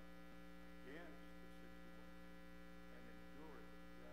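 Steady electrical mains hum in the recording, with faint, distant speech from someone talking off-microphone.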